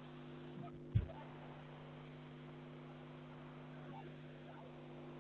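Steady electrical mains hum with faint chalk scratches on a blackboard, and a single low thump about a second in.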